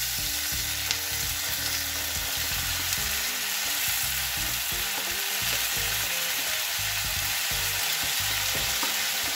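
Chopped onions and ginger-garlic paste sizzling steadily in mustard oil and butter in a cast-iron pan, while chopped tomatoes are scraped in off a wooden board with a wooden spatula and stirred.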